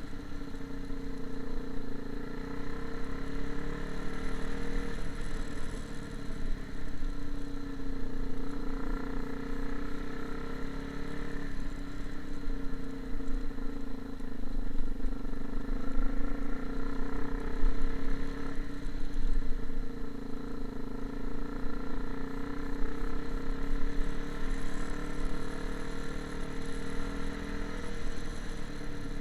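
An engine running steadily, its pitch wavering a little now and then.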